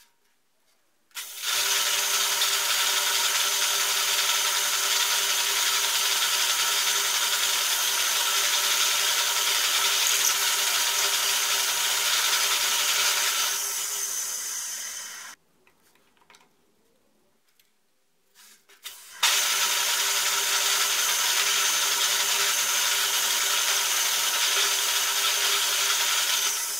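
Drill press running as a 7/8-inch Forstner bit bores into plywood: two long, steady runs of drilling with a pause of about four seconds between them.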